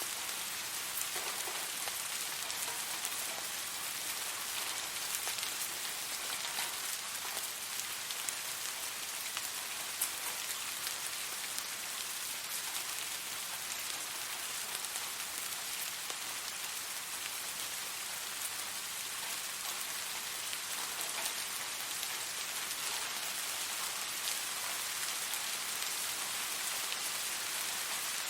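Steady rain falling, a dense even hiss of drops on a surface, with scattered sharper individual drop ticks.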